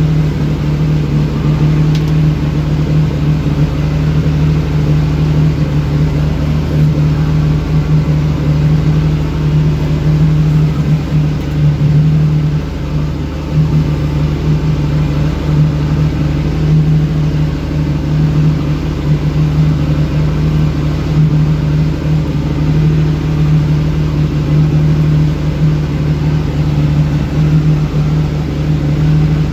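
Fishing boat's engine running steadily under way, a loud constant low drone, with water rushing in the wake behind the stern.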